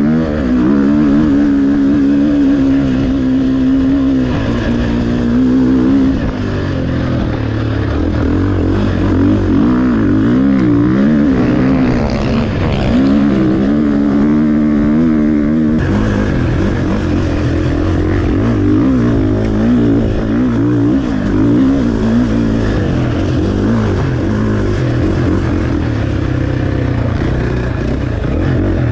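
Onboard dirt bike engine running hard over sand, its pitch rising and falling continuously as the rider works the throttle.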